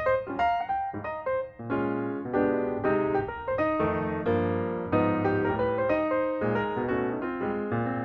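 Background music led by piano: a run of quick struck notes with chords beneath.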